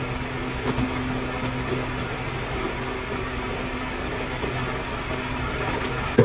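A steady low hum over a hiss of background noise, unchanging throughout.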